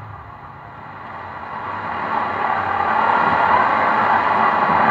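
Car speaker putting out a scratchy static hiss from a car head unit's newly fitted 7388 amplifier IC, swelling louder over the first few seconds: the sign that the amplifier's output is now alive.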